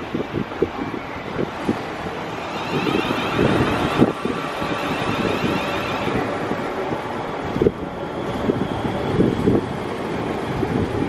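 South Western Railway Class 450 Desiro electric multiple unit running slowly into the platform past the microphone, with a high whine for a few seconds near the start. Gusts of wind buffet the microphone throughout.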